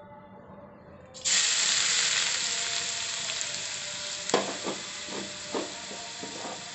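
Finely chopped onions dropped into hot oil in a steel pan: a sudden loud sizzle about a second in that slowly dies down as the onions start to fry. From about four seconds in, a few sharp knocks against the pan.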